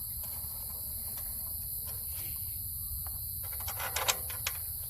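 Crickets chirping steadily in a high-pitched band over a low steady rumble. A few sharp clicks and taps come about four seconds in, as hardware is handled.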